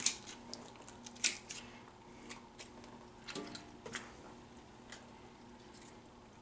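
Kitchen scissors snipping through a crappie's gills: a series of short, sharp snips, the loudest two right at the start and about a second in, then a few lighter ones.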